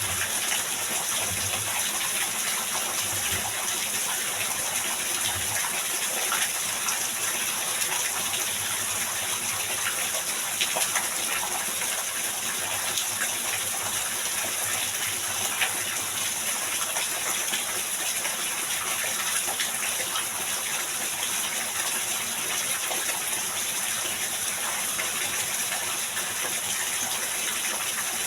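Heavy rain pouring steadily: a constant, even hiss of water with faint scattered ticks.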